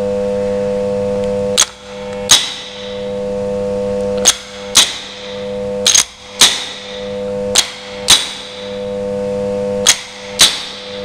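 MTZ-80 tractor starter on a bench test, giving a steady electric hum while powered. Five times the hum is cut by a pair of sharp clicks about half a second apart, as the clamp is pulled off and touched back to the solenoid terminal. After each pair the hum builds back up.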